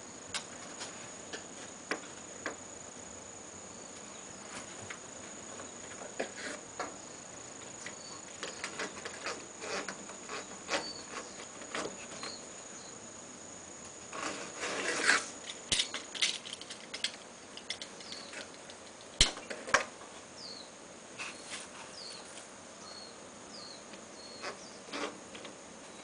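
Scattered clicks, taps and rustling of hand work on an air-conditioner outdoor unit, with a louder scraping stretch about fifteen seconds in and two sharp knocks a few seconds later. A steady high-pitched whine runs underneath.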